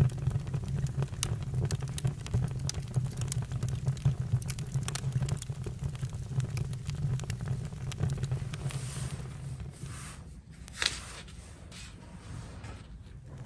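Campfire crackling: irregular sharp pops and snaps over a steady low rumble. The fire goes quieter for a few seconds near the end, with one louder pop in that quieter stretch.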